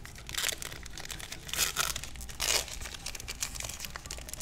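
A Magic: The Gathering booster pack's foil wrapper being torn open and crinkled by hand, with three short rips about half a second, a second and a half, and two and a half seconds in, and small crinkles between.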